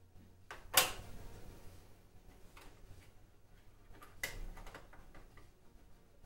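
A few sharp clicks and knocks of small objects being handled and set down on a desk, the loudest about a second in and a weaker one about four seconds in.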